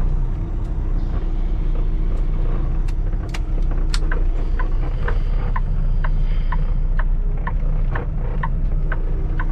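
Semi-truck diesel engine running low and steady in the cab. From about halfway through, a backup alarm beeps about twice a second as the truck reverses into a parking spot, after a few sharp clicks.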